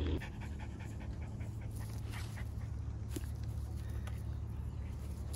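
Shiba Inu panting in quick, even breaths.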